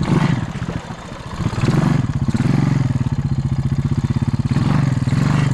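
Honda Rancher 350 ATV's single-cylinder four-stroke engine running, easing off early on, then revving up about a second and a half in and holding a steady pulsing run.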